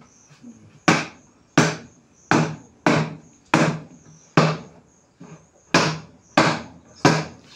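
About ten hollow thumps at a steady pace, a little under a second apart: a plastic table's top being knocked down onto its legs so that the joints seat.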